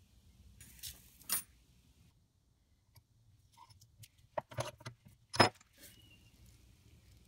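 A few sharp metallic clicks and taps from small steel knife parts and tools being handled, the loudest about five seconds in.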